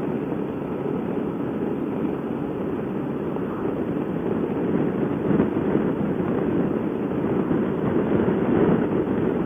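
Steady rush of wind and road noise on a motorcyclist's microphone while riding at road speed, with no clear engine note above it.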